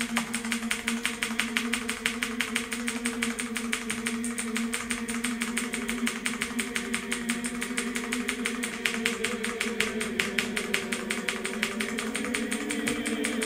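Computer keyboard's Delete key pressed over and over in rapid, even clicks while the PC reboots, to get into the BIOS. A steady low hum runs underneath.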